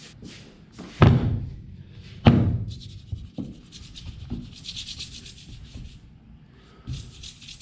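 Hand-work on the mower's battery: two heavy knocks about a second apart, then a few lighter taps and a stretch of fine, fast rasping or rubbing.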